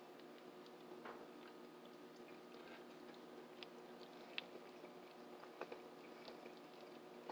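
Faint chewing of a mouthful of spaghetti, with a few soft clicks of a fork against a china bowl, over a steady low hum.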